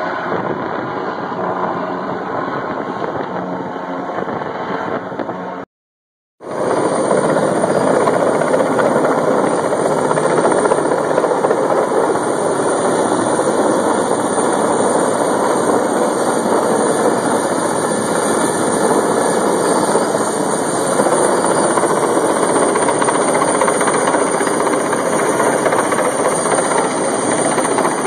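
Cargo helicopter hovering close by with a load on a long line: a steady, loud din of rotor and engine with a high whine over it. About six seconds in the sound cuts out for under a second, then returns louder.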